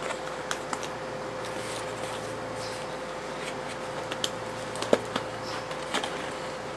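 Cardboard box and foam packaging being handled: scattered light clicks, taps and scrapes, the sharpest about five seconds in, over a faint steady hum.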